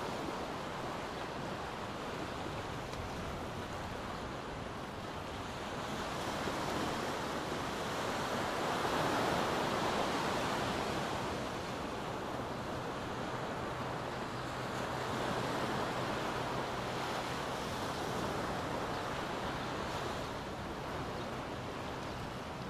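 Small ocean waves washing up a sandy beach: a steady surf hiss that rises and falls as the waves come in, loudest a little before the middle.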